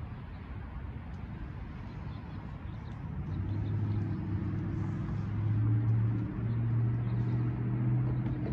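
Low, steady diesel engine hum from GE locomotives out of sight, growing louder about three seconds in, over a background of street traffic noise.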